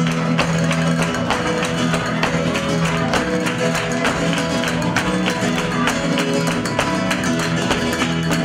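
Flamenco-style Spanish guitar music with a steady rhythm of sharp strokes.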